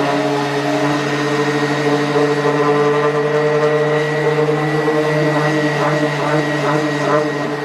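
Electric power sander running steadily with a constant motor hum and whine, sanding wood.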